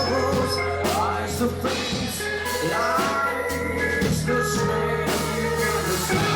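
Live rock band playing, a male voice singing over electric guitar, bass and drums.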